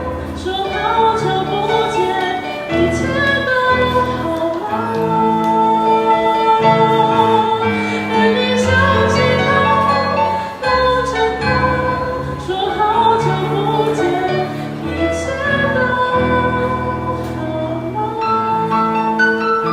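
Live pop band playing a song: long held melody notes over a changing bass line, with regular drum and cymbal strokes.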